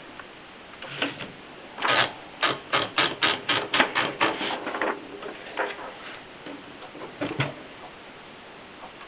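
Keys of a Rheinmetall typewriter being struck: a quick run of about a dozen sharp strokes, about four a second, with a few separate strokes before and after it.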